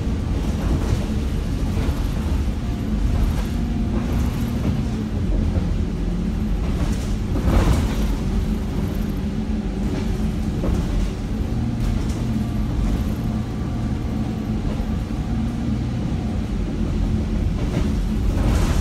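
Steady low rumble of a moving passenger vehicle heard from a seat inside, with scattered rattles and one louder knock partway through.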